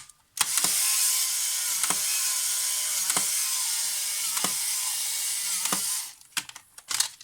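Polaroid folding instant SLR camera's motor and gear train running on for about five and a half seconds, with a sharp click about every 1.3 s, then stopping, followed by a few loose clicks. The camera does not complete its cycle properly: a fault that the restorer is tracing to its switch contacts.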